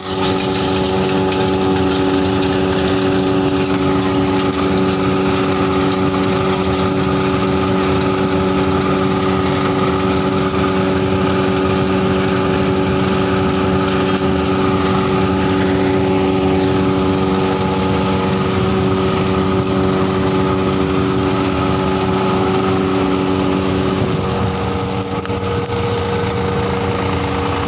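Motor-driven groundnut (peanut) cleaning machine running steadily with a constant hum, separating soil and debris from the peanuts. The hum changes a little about 24 seconds in.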